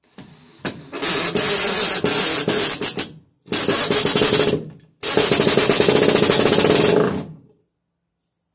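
Cordless drill spinning a hole saw that cuts into overhead wood with a fast rattling chatter. It runs in three bursts, stopping briefly twice, the last and longest ending near the end.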